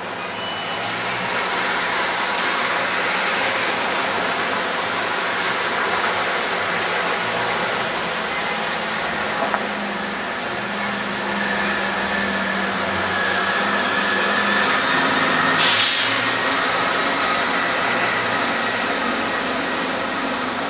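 Subway train running on the nearby line: a steady mechanical running noise with a thin high whine through the middle and a short, sharp hiss of air about three-quarters of the way in.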